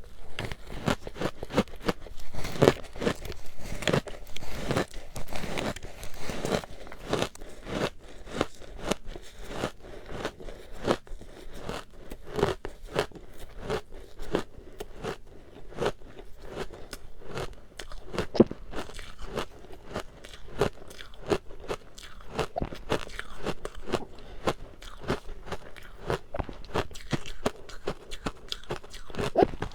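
Close-miked biting and chewing of matcha-powdered ice, a dense run of crisp crunches and crackles with no pause.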